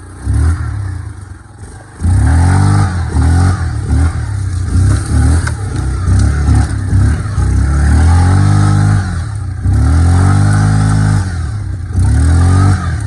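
Yamaha Kodiak 450 ATV engine running hard on a trail, its pitch rising and falling again and again as the revs change, louder from about two seconds in.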